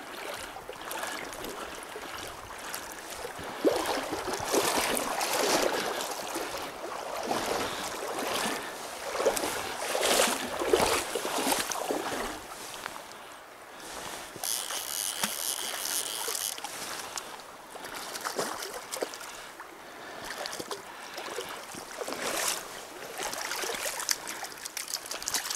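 River water rushing, with irregular splashes as a hooked fish is played on the line and brought in.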